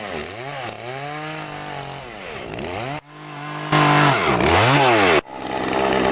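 Chainsaw carving wood, its engine revving up and down over and over, with abrupt jumps in level about three and five seconds in, then running more steadily and louder near the end.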